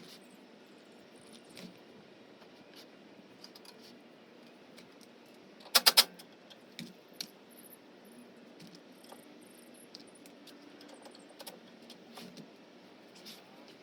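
Scattered sharp clicks and small knocks over a quiet steady background, with a quick burst of three loud clicks about six seconds in.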